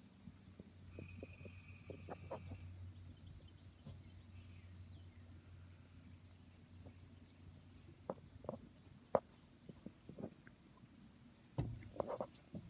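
Quiet scattered rustles and soft clicks of movement against fur, clothing and hay over a faint low hum, with louder handling rustles near the end.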